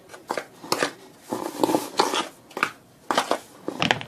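Kitchen things being handled: a string of short, irregular rustles and knocks, with a longer scraping stretch about a second and a half in.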